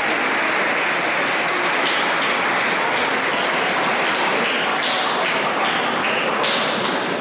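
Spectators applauding after a table tennis point: dense, steady clapping that lasts several seconds.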